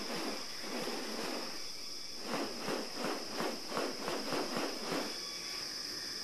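Steady high-pitched drone of rainforest insects. In the middle, a run of about a dozen even, rustling strokes, about four a second, from an unseen source.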